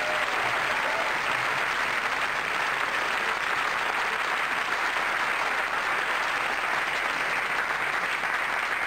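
Audience applauding steadily, a sustained round of clapping.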